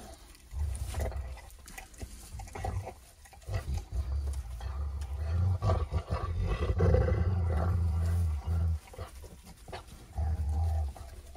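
Three-week-old Great Pyrenees puppies growling at each other as they play-fight, in low rumbling spells: a short one at the start, a long one of about five seconds in the middle and a short one near the end.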